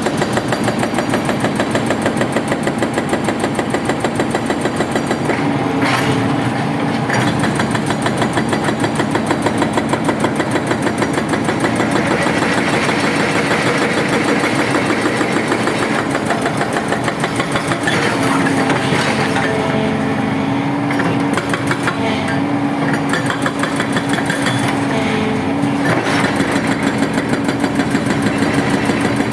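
Hydraulic rock breaker (SKE model 14) on a Sany 140 excavator hammering with rapid, even blows, over the excavator's diesel engine running under load.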